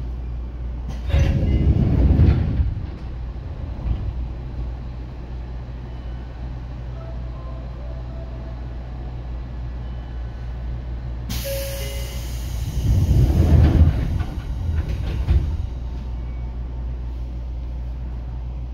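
Seibu 2000 series electric train running, heard aboard: a steady low rumble that swells twice into louder rumbling and clatter, about a second in and again around thirteen seconds. A sudden hiss starts about eleven seconds in and lasts nearly two seconds.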